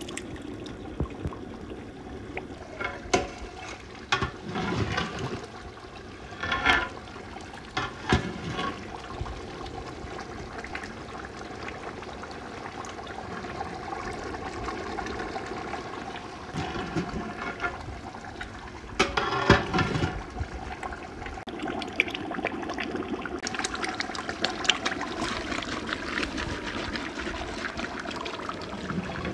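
Mince curry bubbling in a large metal cooking pot as more mince is poured in and a long ladle stirs it, with a steady wet churning under several short clatters of the ladle against the pot, the loudest about twenty seconds in.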